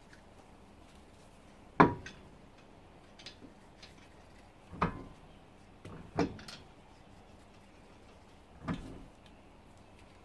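Four dull knocks a few seconds apart, with faint clicks between them, as an alloy road wheel is hung on the hub and its wheel nuts are threaded on by hand.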